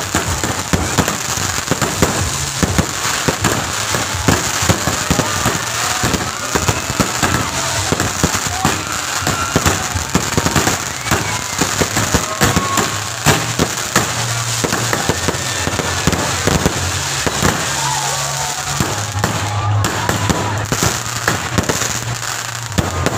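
Fireworks display going off: a dense, continuous run of bangs and crackles, with voices in the background.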